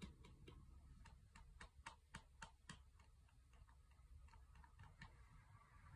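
Wooden chopsticks tapping against a metal food can: a run of faint light clicks, about three or four a second, loudest around two seconds in and thinning out later, used to call a dog to its food.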